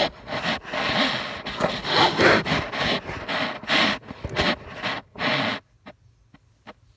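Handling noise on a phone's microphone: irregular rubbing and scraping as the phone is moved about and brushed by a hand or clothing, stopping about five and a half seconds in, followed by a few faint clicks.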